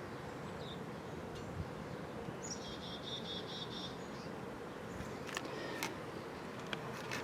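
Norcold portable fridge's compressor running with a steady faint hum. A short, high, rhythmic chirping trill sounds about two and a half seconds in, and a few light clicks near the end.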